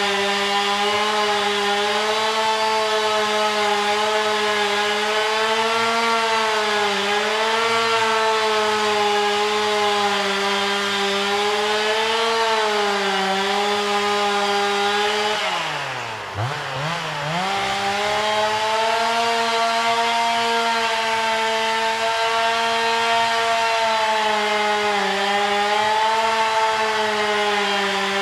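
Chainsaw running at high speed, its pitch sagging and recovering a little as if under load in wood. About halfway through it winds sharply down and revs back up, and it begins to wind down again at the end.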